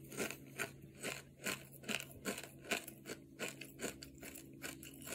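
A person chewing a mouthful of kettle-cooked potato chips, with steady crisp crunches about two to three times a second.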